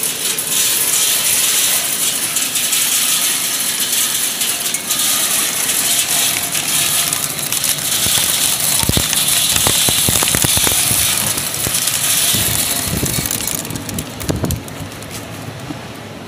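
Sunflower seed shelling machine running, seeds rattling through it as they are husked in a loud, dense clatter of fine clicks. A few low knocks come in the middle, and the rattle eases off near the end.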